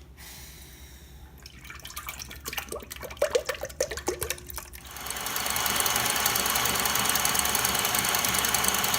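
Knocks and clatter of handling, then about five seconds in an electric hand mixer starts and runs steadily, whipping heavy cream toward stiff peaks.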